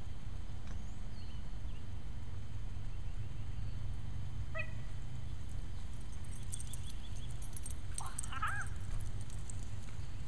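A dog whining briefly in excitement, once around the middle and again as a short bent cry near the end, over a steady low rumble on the microphone; light metallic jingling comes in during the second half.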